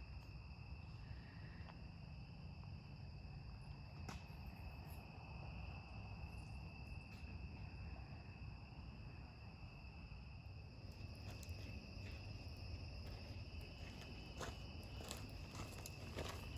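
Crickets chirping in a steady, continuous high trill, with a few light clicks and rustles in the second half.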